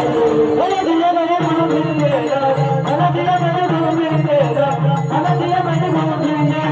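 A male voice singing a Marathi devotional bhajan melody set to a Bhairavi tune, over steady held accompaniment tones. Small hand cymbals keep an even beat of about three to four strikes a second.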